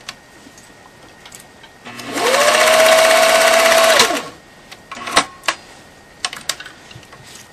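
Pfaff 1222 sewing machine running at speed for about two seconds, stitching straight through three layers of strapping material: the motor whine rises, holds steady, then winds down. A few sharp clicks follow.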